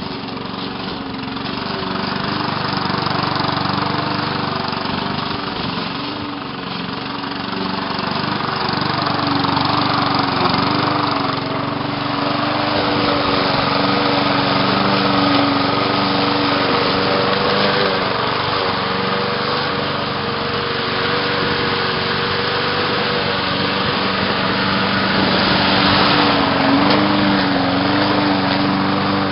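Briggs & Stratton lawn mower engine running steadily while cutting through tall weeds, its pitch wavering slightly as the load changes.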